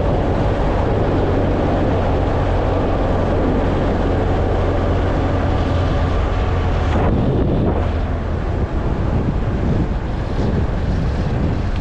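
A car driving at road speed: steady tyre and engine noise with a low hum, heard from inside the car.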